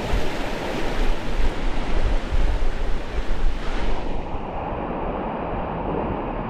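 Rushing river water with wind buffeting the microphone; the hiss of the water dulls about four seconds in.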